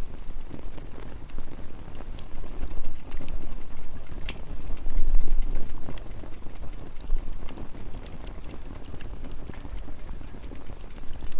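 Firewood burning, with scattered sharp crackles and pops over a steady low rumble that swells briefly about five seconds in.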